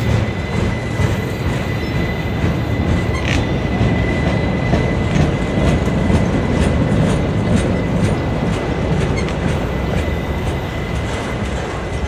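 Freight train of autorack cars rolling past close by: a steady rumble of steel wheels on rail, with frequent clicks over rail joints and a thin, steady high whine.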